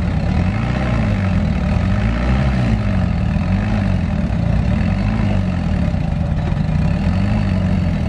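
Diesel engine of a small crawler bulldozer running under load as it tows a second dozer out of deep mud by a cable, its note wavering up and down about once a second.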